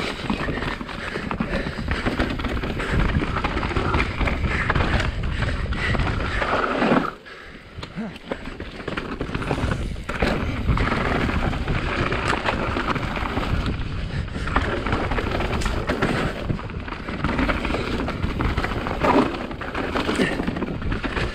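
Specialized Enduro mountain bike descending a loamy dirt trail: tyres rolling and skidding over the ground, with a steady rush and constant clattering and knocks from the bike over bumps. The sound drops away sharply for about a second near a third of the way through, then picks up again.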